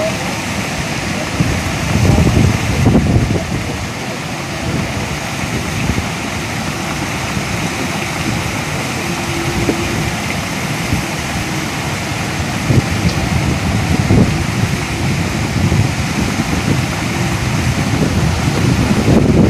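Wind buffeting the microphone in low rumbling gusts, over a steady outdoor rushing noise.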